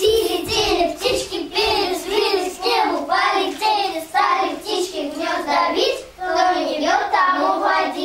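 A group of young children singing a song together in short, rhythmic phrases.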